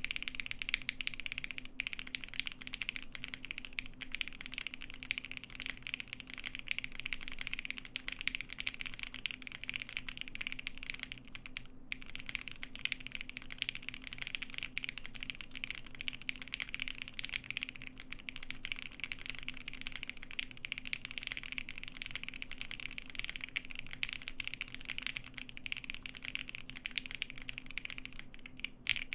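Fast, continuous typing on a Cannon Keys Bakeneko60 mechanical keyboard fitted with lubed and filmed Lavender switches and PBT keycaps: a dense stream of key clacks, pausing briefly about twelve seconds in and again near the end.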